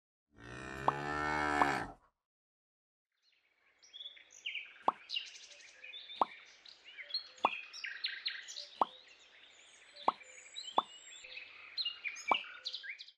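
A cow moos once, lasting about a second and a half, most likely an added sound effect. After a short gap comes a run of seven cartoon-style plop sound effects, spaced about every 1.3 seconds and matching the little seed beads being pushed into the sand. Scattered high chirps run under the plops.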